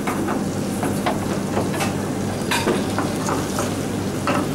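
Food frying and sizzling in stainless steel pans on a commercial range, with a scatter of sharp metallic clicks and knocks as the pans are handled, over a steady low hum of kitchen extraction.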